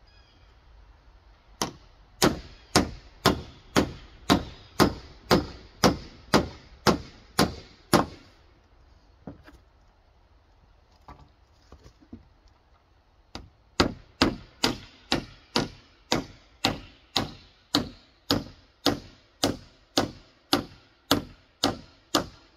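A hammer nailing a rough slab-wood board: steady blows about two a second, a run of about thirteen, then a pause of about five seconds, then a second run of about eighteen.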